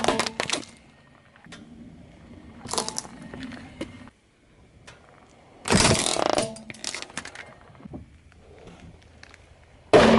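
Car tyre rolling over small squishy and plastic toys, crushing them in several separate bursts of crackling and crunching, the longest and loudest about six seconds in. Right at the end comes a sharp hit with a short ringing note.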